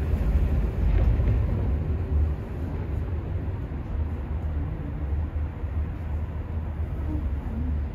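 Steady low rumble of a moving Roosevelt Island Tramway aerial cabin, heard from inside the cabin; it eases slightly after about two seconds.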